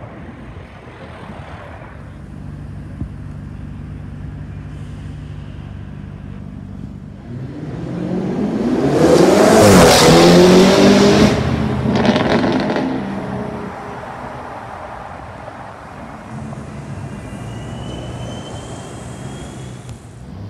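Lamborghini Urus twin-turbo V8 exhausts running at low revs, then a loud close pass under acceleration about eight seconds in, its pitch rising and then falling away over about four seconds. Then lower, steady engine running again.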